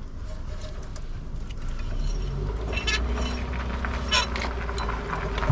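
Motor vehicle engine running steadily, its low hum growing louder about two seconds in, with a few sharp clicks or knocks over it.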